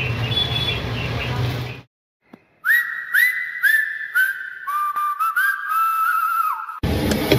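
A run of about seven overlapping whistle tones. Each starts with a quick upward swoop and holds, and the tones step down in pitch, the last one sliding down. Before them there is about two seconds of busy street background, then a brief silence, and the background returns near the end.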